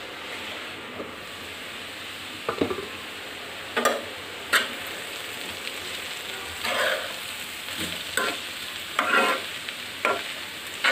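Mixed vegetables and egg sizzling steadily as they fry in a pan, stirred with about eight short, irregular scrapes against the pan.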